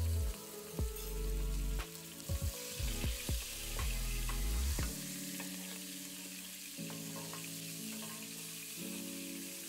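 Butter sizzling steadily as it melts in hot oil in a nonstick frying pan, stirred with a wooden spoon. Background music plays underneath, with heavy bass notes in the first half giving way to held chords.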